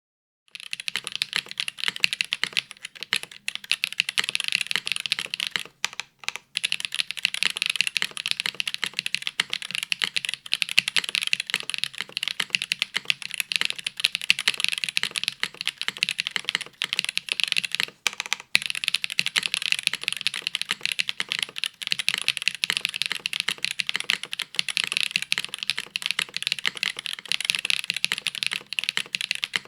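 Continuous fast typing on a custom mechanical keyboard: an aluminium-plated, top-mount, foamless Gehirn TKL with WINGTREE Nezuko linear switches (55 g, dry) and GMK Norse keycaps, a dense run of key clicks and clacks with brief pauses about six seconds in and near eighteen seconds.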